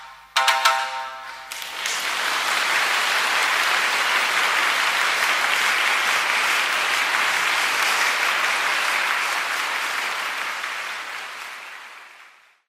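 The last few struck notes of music, then steady applause that fades out near the end.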